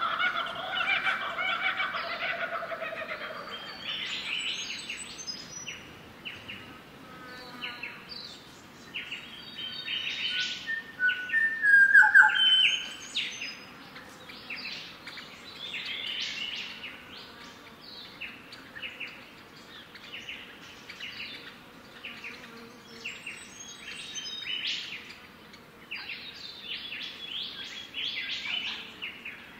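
Several birds chirping, a steady scatter of short, high chirps, with one louder call that falls slightly in pitch about twelve seconds in. During the first three seconds a chicken is calling.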